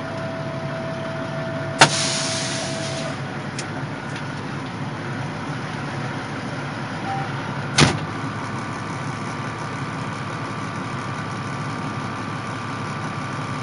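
Heavy-haul truck engine idling steadily. A sharp click followed by a short fading hiss comes about two seconds in, and another sharp click near eight seconds.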